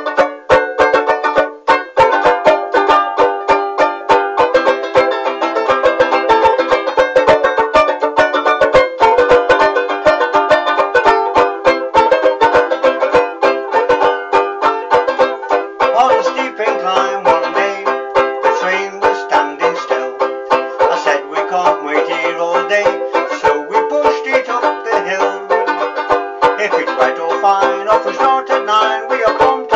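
Banjo ukulele (banjolele) strummed fast and steadily in a bright chord rhythm.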